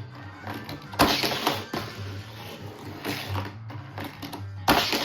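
Hot Wheels die-cast cars running on a plastic track set, with sharp plastic clacks about a second in and near the end followed by rattling as the cars roll and bump along. Video game music plays in the background.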